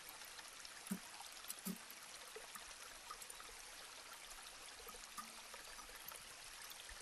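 Near silence: a faint steady hiss of room tone with a few soft ticks about a second or two in.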